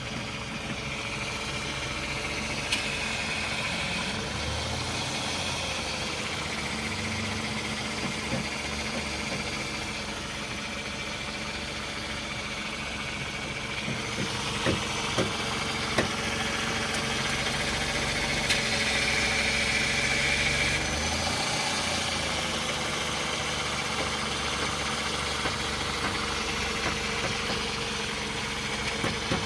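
Car engine idling steadily while the front wheels are turned, with a few short wavering whines and several sharp clicks: the noise the car makes when turning the wheels.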